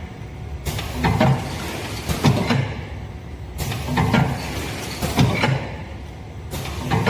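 A four-side-seal automatic packaging machine running through its cycle: clusters of clacks and knocks, each with a bright rushing noise, repeat about every three seconds over a steady mechanical hum.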